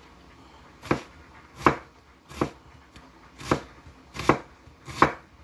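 Large kitchen knife slicing an onion into long strips on a plastic cutting board: six unhurried cuts, about one every three quarters of a second.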